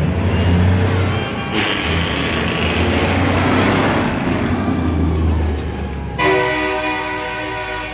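A semi truck's diesel engine rumbles as it passes close by, with a loud rushing noise over it from about a second and a half in. About six seconds in, a truck air horn starts one long, steady blast.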